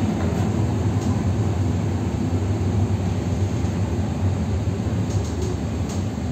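Steady low running noise inside the passenger car of an EP2D electric train, easing off slightly as the train slows into a station.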